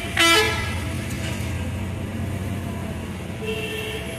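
Steady low engine rumble of road traffic, with one short, loud pitched blast about a quarter of a second in.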